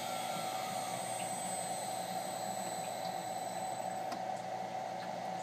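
VFD-driven Chinese CNC router spindle spinning down as it is switched off: a steady hum and hiss with a faint high-pitched whine that cuts off about four seconds in.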